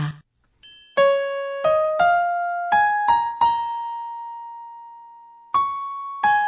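Solo keyboard melody of single notes played one at a time, starting about half a second in, with one long note held and dying away in the middle before the notes pick up again.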